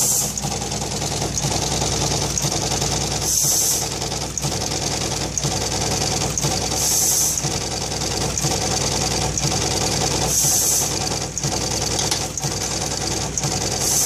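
High-speed connector pin stitcher machine running, with a fast, even mechanical clatter as it inserts and bends pins. Sharp knocks come about once a second, and a short hiss about every three and a half seconds.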